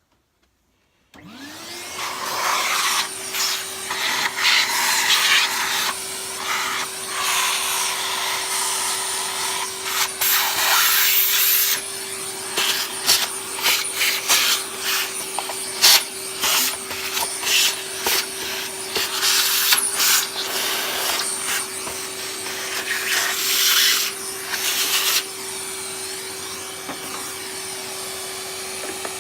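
A Numatic Henry vacuum cleaner is switched on about a second in. Its motor spins up to a steady whine, with irregular scratchy, rattling bursts as it sucks muck out of a stripped-down vacuum's housing.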